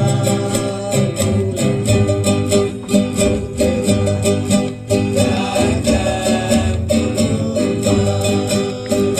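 Acoustic string band playing: fast, even strumming on plucked strings over a steady bass line.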